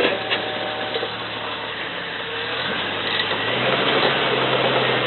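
Off-road vehicle engine running under load on a steep climb. It steadies, then its pitch steps up and it gets louder about three and a half seconds in.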